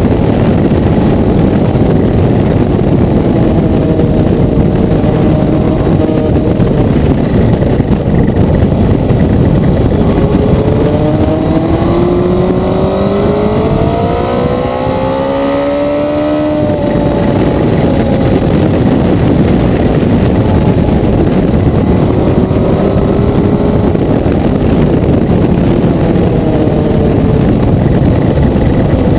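Motorcycle under way with heavy wind rush over the microphone. About ten seconds in, the engine's pitch climbs steadily under acceleration for several seconds, then drops away abruptly as the throttle closes, before the bike runs on at a steadier pitch.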